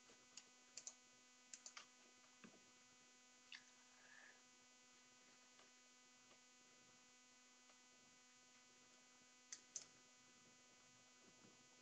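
Near silence: a steady electrical hum with a few faint, scattered clicks.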